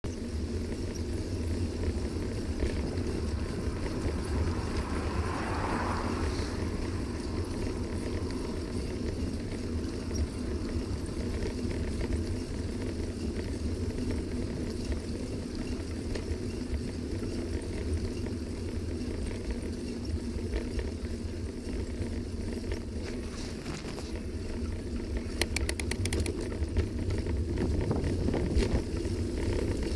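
Steady rumble of wind on the microphone and bicycle tyres rolling over a wet, leaf-covered cycle path. There is a swell of noise about five seconds in and a quick run of fine ticks about twenty-five seconds in.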